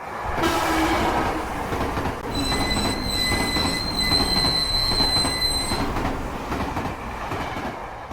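Dubbed-in sound effect of a real train running past, a dense steady noise of wheels on rails, with a steady high-pitched wheel squeal from about two seconds in to about six seconds in, then easing off near the end.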